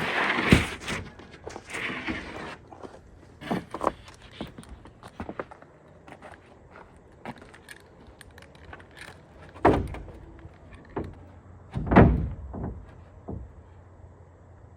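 A series of knocks and thumps from objects being handled, with a short hiss at the start and two heavier thumps near the end.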